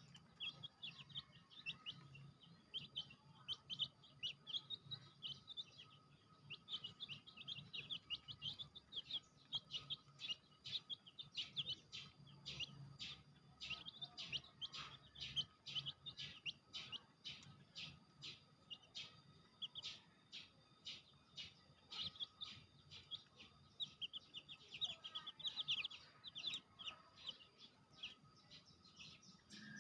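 Baby chicks peeping continuously, many short high peeps following one another several times a second.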